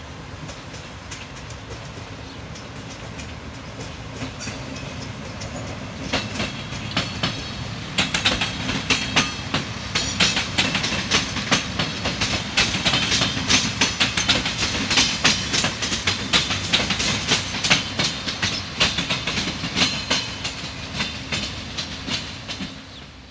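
Siemens Desiro diesel multiple unit passing close by, its wheels clicking rapidly over rail joints and points above a steady low engine hum. The clicking starts to build about six seconds in, stays loud through the middle and fades near the end.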